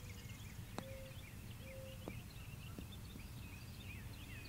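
Songbirds chirping continuously in the surrounding trees, with a few short whistled notes and a low outdoor rumble underneath. A single faint sharp click comes about a second in.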